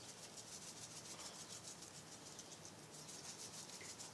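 Faint, fast, even rustling of tissue paper as a bundle of freshly fried potato fries is shaken in it to spread salt.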